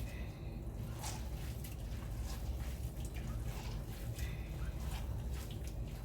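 Wet grated potato squeezed by hand, the starchy water squishing out and dripping in scattered small splashes, pressed out so the hash browns will cook crisp. A steady low hum runs underneath.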